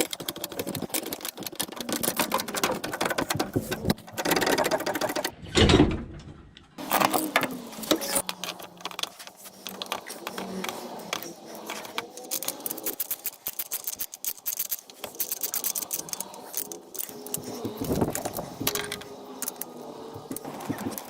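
Rapid, dense clicking and rattling of hand tools working on bolts under a car, with a louder knock about six seconds in followed by a brief gap.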